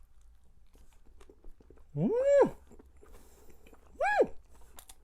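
A person chewing a meat dumpling with faint mouth clicks, breaking in twice with a short vocal exclamation of delight that rises and then falls in pitch: a longer one about two seconds in and a shorter one about four seconds in.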